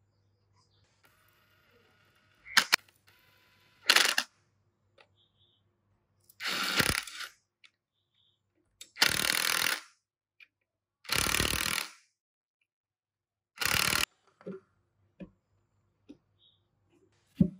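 Cordless impact driver hammering a socket on the end of a bench grinder's motor shaft, in four bursts of about a second each.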